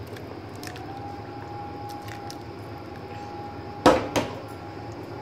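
Thick mutton masala being poured from a steel vessel into a large pot of haleem, a soft wet sliding, then two sharp metal knocks close together about four seconds in.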